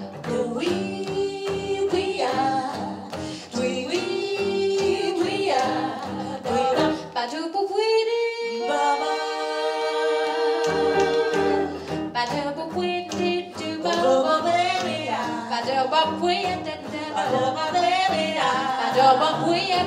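Live jazz band playing, with a wordless scat vocal line over a stepping bass line. About eight seconds in, the bass drops out for a few seconds under a long held note, then the band comes back in.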